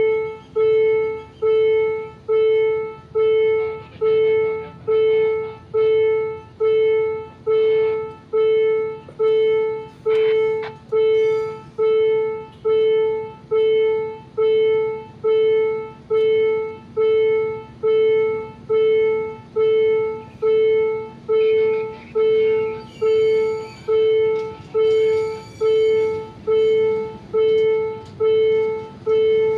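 Railway level-crossing warning bell ringing about once a second, each stroke a clear ringing tone that fades quickly. It signals that the barriers are down for an approaching train.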